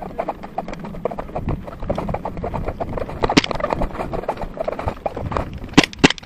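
Quick, irregular clattering knocks, then two sharp airsoft gun shots near the end.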